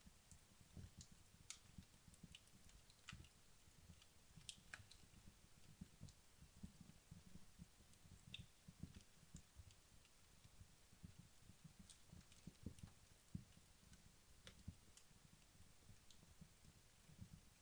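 Wood logs burning down in a fireplace: faint, sparse crackles and small pops at irregular intervals over a soft low rumble.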